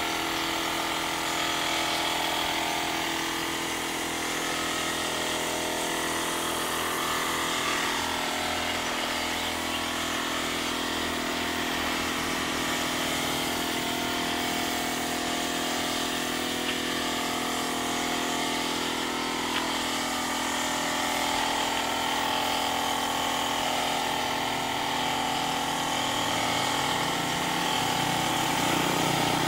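Air compressor running steadily, a continuous machine hum holding several steady tones, its low part shifting slightly near the end.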